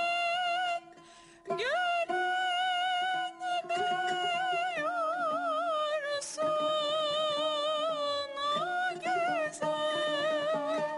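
A woman sings a Turkish classical song in makam Uşşak, holding long notes with a wavering vibrato and sweeping ornaments, with tanbur accompaniment. There is a short break in the singing about a second in, after which her voice slides up into the next phrase.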